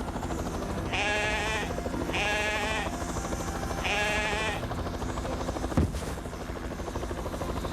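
A sheep bleating three times, each bleat a wavering call of under a second, over the steady hum of a hovering helicopter.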